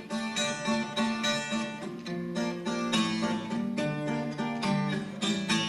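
Acoustic guitar played alone, picked and strummed chords in a steady rhythm between sung verses of a song.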